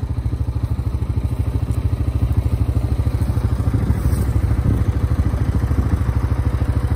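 An engine idling steadily, a fast, even, low putter with no change in speed.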